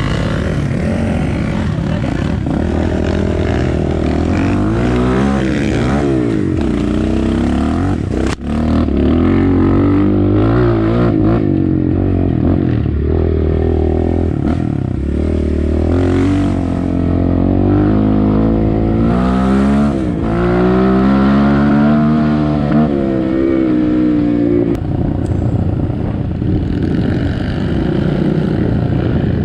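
Dirt bike engines revving up and easing off repeatedly, the pitch rising and falling. A sharp knock about eight seconds in.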